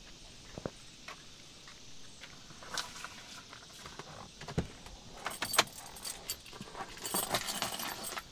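Keys jangling, with light clicks and knocks. The jingling comes in two clusters, a short one about five seconds in and a longer one about seven seconds in.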